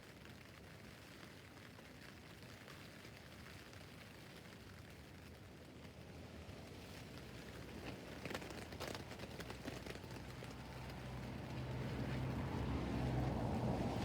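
Rain pattering on a tent's fabric roof, with a few sharper drop taps about eight seconds in. In the last few seconds a low, steady hum swells up and becomes the loudest sound.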